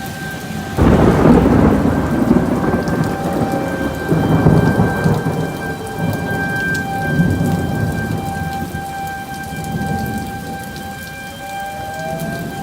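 A close thunderclap cracks about a second in and rolls into long rumbling, over steady heavy rain. A tornado warning siren holds a thin steady tone underneath, and its pitch sags and climbs back near the end.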